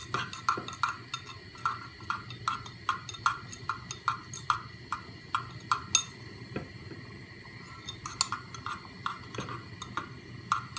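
A spoon stirring in a small cezve, clinking against the pot's sides in a steady rhythm about twice a second, with a short pause a little past the middle. It is stirring butter into warming grape molasses until the butter melts.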